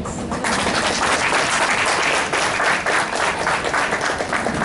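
A room audience applauding, the clapping starting about half a second in.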